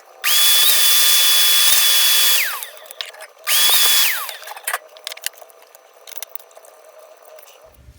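Small electric vacuum cleaner switched on twice, whining with a rush of air as it sucks dust out of the opened back of a drill motor: first for about two seconds, then a brief half-second burst, its pitch falling each time it spins down. Light rattling follows.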